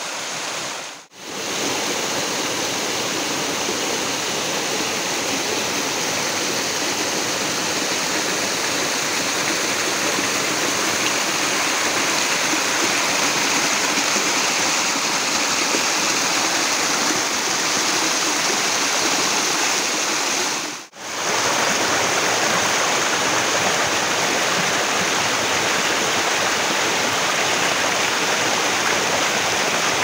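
A small forest stream cascading over rocks in a low fall, a steady rush and splash of water. It drops out briefly twice, about a second in and about twenty seconds in.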